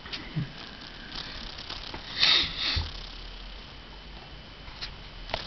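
Steady rain during a thunderstorm, with scattered single drops ticking close by and a brief louder rustle about two seconds in.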